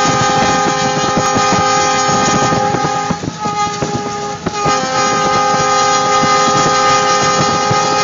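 Diesel locomotive's air horn held in one long, steady chord over rumbling and wind noise as the snowplow train passes close by. The horn fades briefly about three seconds in, then holds again.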